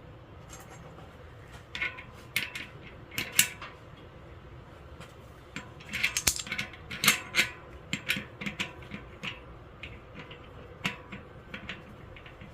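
Irregular clicks and clinks of small metal bicycle hub parts and tools being handled, thickest about two seconds in and again from about six to eight seconds in.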